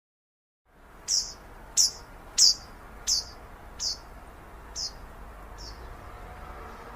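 A songbird giving a series of seven sharp chirps, each sweeping down in pitch, about two-thirds of a second apart and growing fainter toward the end, over a steady outdoor hiss. It starts after a brief moment of dead silence.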